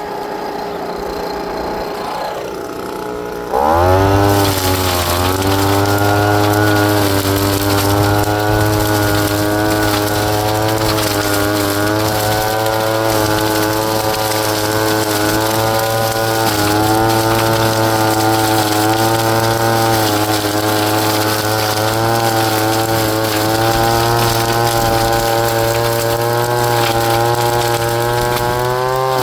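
Proyama 26cc two-stroke handheld blower running in vacuum-and-shred mode: it idles for the first few seconds, then is throttled up sharply and holds a steady high-speed whine for the rest, with a brief dip about halfway through.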